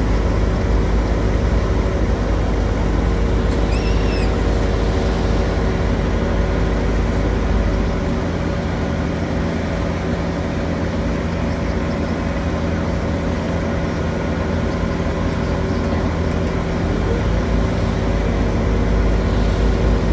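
A large engine running steadily with a heavy low rumble, easing off about eight seconds in and building again near the end.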